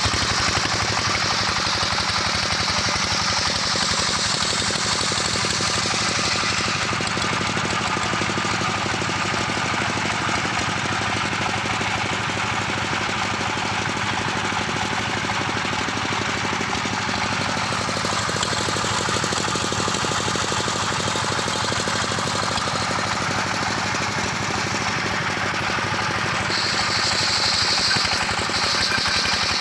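Engine-driven circular sawmill running steadily while sawing a mango-wood log into boards, with a brighter high hiss over the first several seconds and again near the end.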